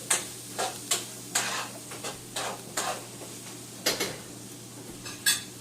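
Ingredients frying in oil in a pan, sizzling steadily, while a utensil stirs and scrapes them in about ten short strokes, most of them in the first three seconds.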